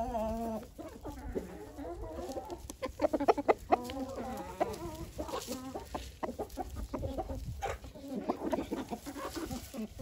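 A flock of domestic chickens clucking, many short overlapping calls from several birds at once.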